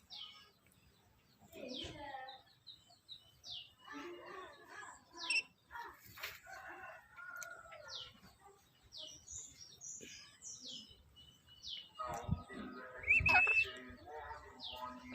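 Black-capped lory calling: many short, high chirps that slide downward, scattered through, with louder, harsher squawks late on.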